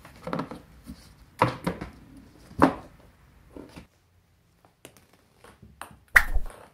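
Cats playing with a small ball: irregular knocks and thumps of the cats bumping a cardboard box and moving on tatami, with a low thud about six seconds in as the ball is knocked off a wooden ledge onto the floor.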